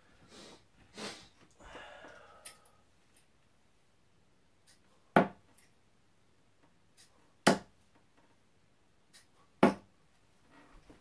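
Three darts striking a Winmau Blade bristle dartboard one after another, about two and a half seconds apart, each a single sharp impact.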